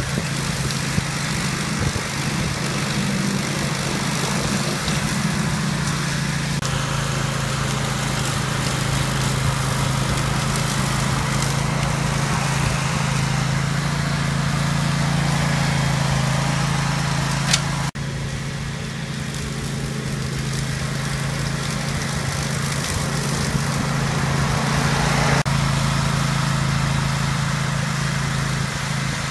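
Grillo Climber 9.18 ride-on mower's engine running steadily under load while it cuts long grass, a constant low hum with the cutting noise over it. The sound jumps abruptly a few times.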